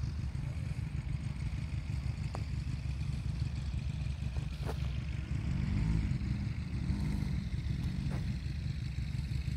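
Wind buffeting the microphone: a steady, gusty low rumble. About halfway through, a faint hum swells and bends up and down in pitch, and there are a few faint clicks.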